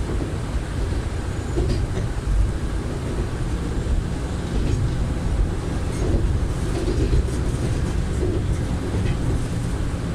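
Kanto Railway KiHa 310 diesel railcar running, heard from inside the front cab: a steady low rumble of engine and wheels on the rails, with a few faint clicks.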